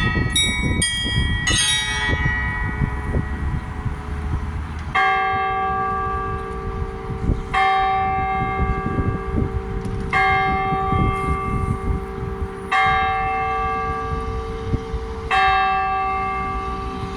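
Church bells: a quick run of smaller bells in the first two seconds rings out and dies away, then a single large bell is struck five times at an even pace, about every two and a half seconds, each stroke ringing on. A low rumble runs underneath.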